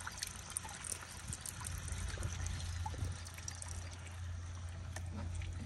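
Water poured steadily from a plastic jerry can into the strainer in the mouth of a backpack sprayer tank, trickling and splashing as the tank fills.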